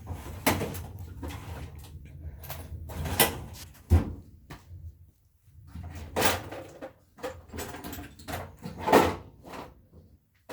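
Rummaging through a toolbox: a string of knocks and clatters from drawers and loose hardware being handled, with a brief lull about halfway.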